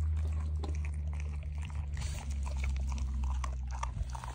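Black German Shepherd chewing and biting at a chunk of raw deer meat, a string of short, irregular bites, over a steady low hum.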